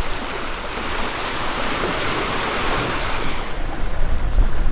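Sea water rushing and splashing past the hull of a Hunter 33 sailboat under sail, a wash that swells up and fades away about midway. Wind buffets the microphone, with low rumbling that grows near the end.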